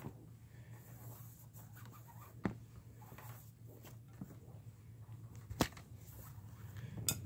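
Paracord being handled and pulled through a hand-braided rifle sling: faint rustling with a few sharp clicks, the loudest near the end, over a steady low hum.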